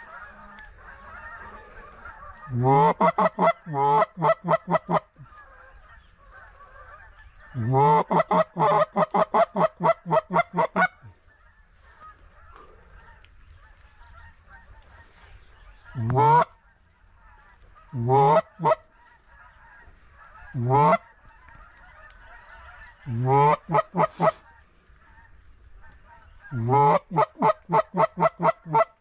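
Goose honking: loud runs of quick honks, about six a second, each run opening with a rising moan, with a few single honks in the middle. A faint steady chatter continues between them.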